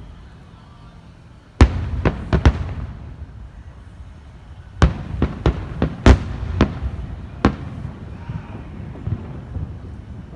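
Fireworks going off: a quick run of four sharp bangs about one and a half seconds in, then a second volley of about seven bangs near the middle.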